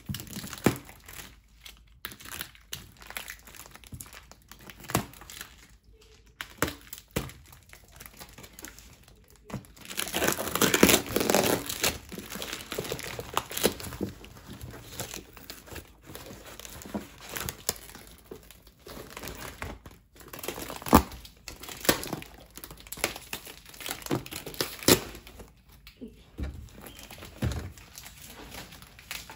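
Plastic parcel wrapping being crinkled and pulled open by hand: irregular crackles of clear plastic film and a plastic mailer bag, with a denser, louder stretch of tearing and rustling about ten seconds in.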